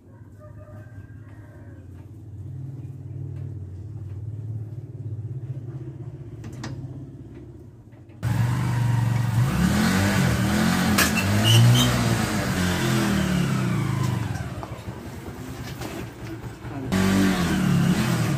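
Homemade mini buggy's underbone motorcycle engine running: a low steady hum at first, then, after a cut about eight seconds in, much louder with its pitch rising and falling as it is revved and the buggy is driven.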